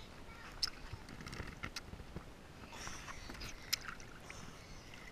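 Pool water lapping and splashing lightly at the surface, with scattered small clicks and drips.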